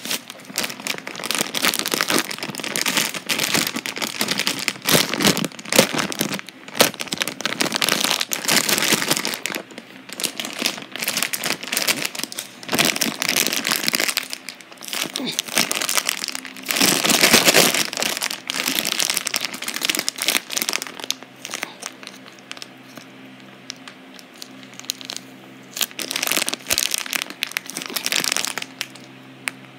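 Handfuls of blue kinetic sand being crumbled and dropped onto a heap of sand: dense, crackly rustling in uneven bursts. It eases off about three-quarters of the way through, with a couple more bursts near the end.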